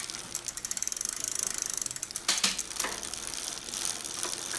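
A 26-inch 21-speed mountain bike's chain and rear sprockets turned by hand, giving a rapid, continuous ticking. A few louder clunks come as the rear derailleur changes gear. The derailleur is not shifting cleanly.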